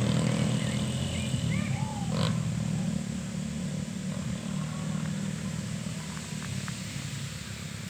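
Rally motorcycle engines droning steadily, growing fainter as the bikes move away.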